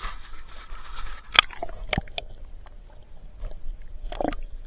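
Handling noise as a camera or gear is worked at the water's edge: a brief hissing rush of water, then several sharp clicks and scrapes, the loudest about a second and a half in and another cluster near the end.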